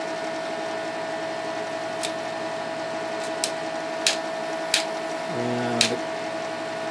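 Tektronix R7704 oscilloscope's power supply fan running with a steady hum and whine, over which front-panel pushbutton switches click about six times as they are pressed. The switches are not catching and releasing properly.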